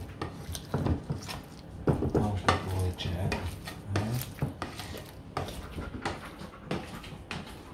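Plastic potato masher clacking and scraping against a metal saucepan as soft boiled pumpkin is mashed, in irregular knocks several times a second.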